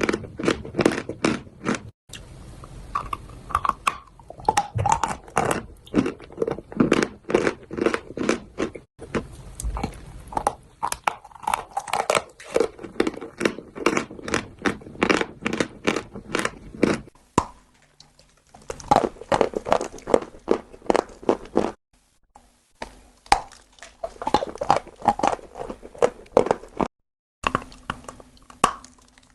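Close-up crunching and chewing of chalk, rapid crisp crunches a few times a second, with a few short pauses in the second half.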